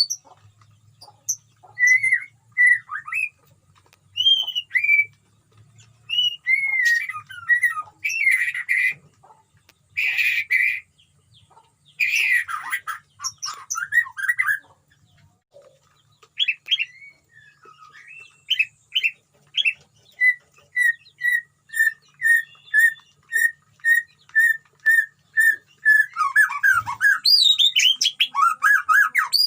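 White-rumped shama singing a varied song of whistles, chirps and harsh rasping notes, with a run of evenly repeated whistled notes, about two a second, in the second half.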